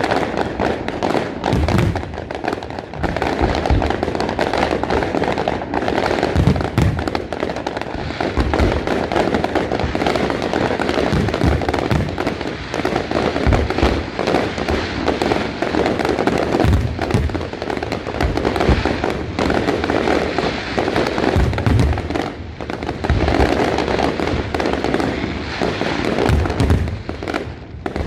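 Aerial fireworks display: a dense, unbroken crackle of bursting shells with frequent deep booms throughout.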